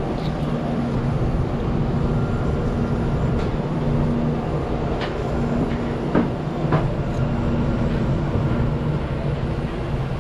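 Steady low mechanical hum with a rumble under it, and a few brief clicks in the middle.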